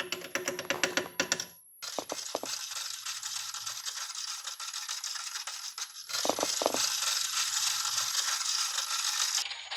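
A spoon clinking and scraping in a cup as baking soda is scooped and stirred into water. A quick run of clicks for the first second and a half gives way to a steady scraping rattle.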